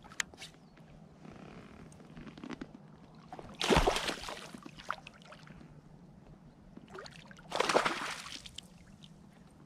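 A small hooked pike thrashing at the surface beside the float tube, in two bursts of splashing: one about three and a half seconds in, another about seven and a half seconds in.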